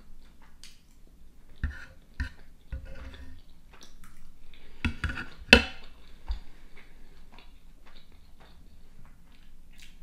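Metal fork scraping and tapping on a wooden cutting board while the last scraps are picked up, with some chewing. A sharp clack about five and a half seconds in as the fork is set down on the board.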